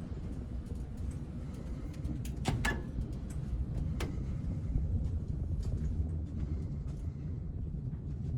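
Low, steady rumble of a large ferry under way, with a few sharp clicks or knocks about two and a half and four seconds in.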